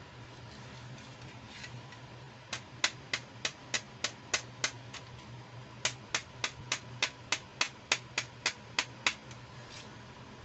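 Two runs of sharp, evenly spaced plastic clicks, about three a second, from toy beauty accessories being handled: about nine clicks, a short pause, then about a dozen more.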